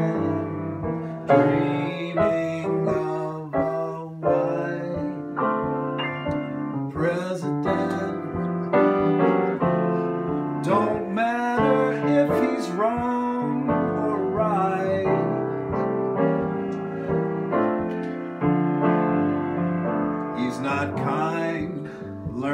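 Piano played continuously, with a man singing along to it.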